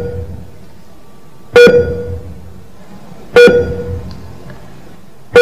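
A loud sound effect added in editing, repeating three times about every two seconds: each hit starts sharply with a pitched tone that fades over about half a second.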